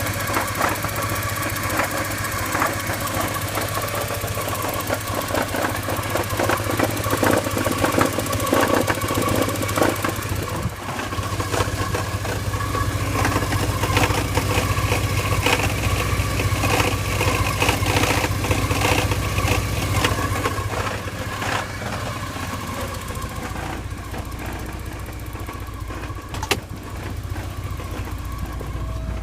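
1987 Porsche 944's 2.5-litre four-cylinder engine idling with a rapid grinding, rattling noise from the clutch area, which the owner suspects is the clutch and finds better with the clutch pedal pushed in. The noise eases off about two-thirds of the way through.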